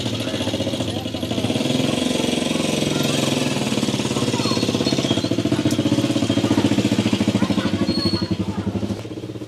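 A motor running steadily with a fast, even pulse. It grows louder after about a second and a half and drops off sharply near the end.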